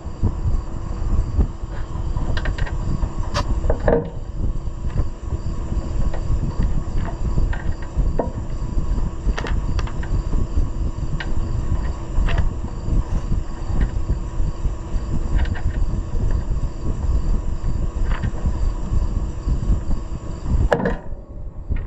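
Steady low rumbling hum with scattered light clicks and taps from handling wires and tools during tractor rewiring.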